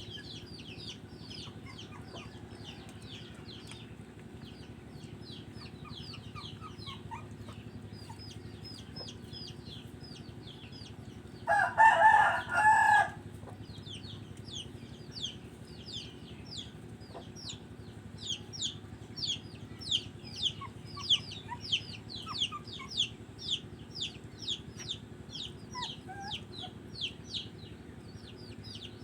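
Chickens: chicks peeping without pause in fast, high, falling notes, and a rooster crowing once about twelve seconds in, the loudest sound. A low steady hum runs underneath.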